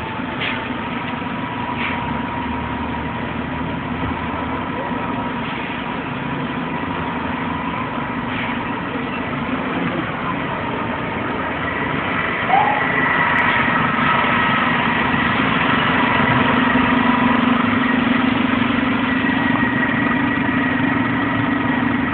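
Street traffic with a large vehicle engine idling close by: a steady low hum with a thin steady whine above it, growing louder about halfway through.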